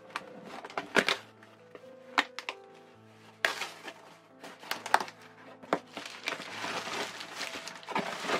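A cardboard shipping box being torn open by hand, with a run of sharp tearing and knocking sounds, then plastic bubble wrap crinkling as it is pulled out near the end, under background music.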